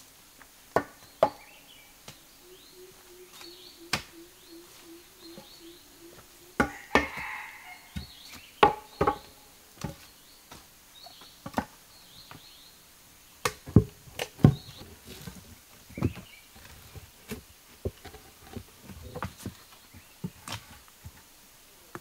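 Irregular chopping blows on wood, sharp and separate, coming one or two a second with some in quick pairs.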